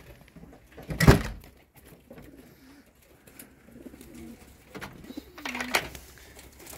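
Racing pigeons cooing softly a few times, with one sharp knock about a second in.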